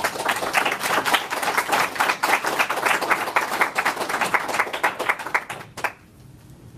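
A small audience applauding: dense hand clapping that thins out and stops about six seconds in.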